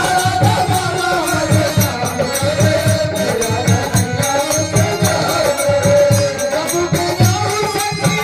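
Hindi devotional song (bhajan) music: a steady drum beat under a gliding melodic lead line.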